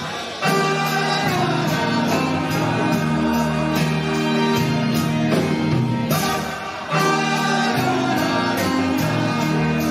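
Live band playing through a PA, with a male lead vocal over electric guitar, bass guitar, drums, keyboards and saxophone. Backing vocals carry extra reverb. The bass and drums drop out briefly about seven seconds in, then the full band comes back in.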